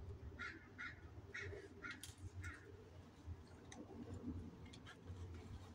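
A crow cawing, a series of about five short caws half a second apart in the first half, faint over a low rumble.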